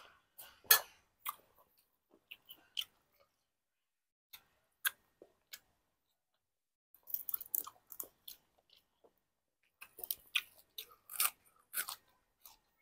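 A man eating: a spoonful of stew taken, then chewing and crisp crunching of fresh raw greens, in scattered single crunches with dense clusters about seven seconds in and again near the end.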